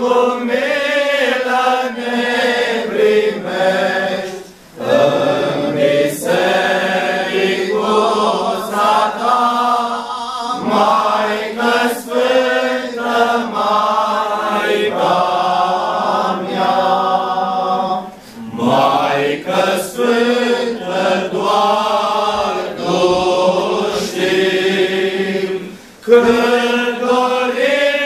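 Men's choir of Orthodox monks singing a Romanian priceasnă (communion hymn) unaccompanied, with short pauses between phrases about 5, 18 and 26 seconds in.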